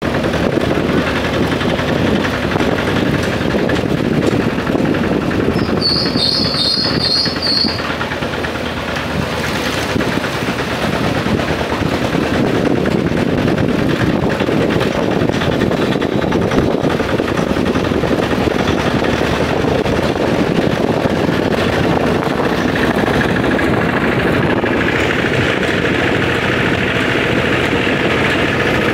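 Engine van (motorised van rickshaw) under way, its engine running steadily with road noise. A short high-pitched trill of about six notes sounds about six seconds in.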